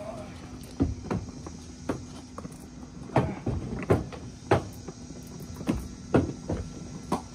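Wooden fish crates knocking and clattering as they are handled and loaded, and as a tall stack of them rides on a platform hand truck being pushed across wet concrete: about a dozen irregular sharp knocks. A steady low hum runs underneath.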